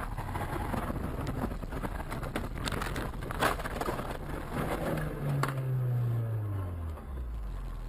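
Car driving with steady road noise, then a sharp knock about three and a half seconds in and another near five and a half as it ploughs into deep roadside snow. Its engine note then falls steadily in pitch, slowing down.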